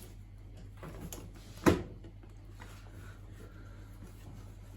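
Plastic detergent drawer housing of a washing machine being slid into position in the control panel: faint handling and rubbing, then one sharp plastic knock about a second and a half in.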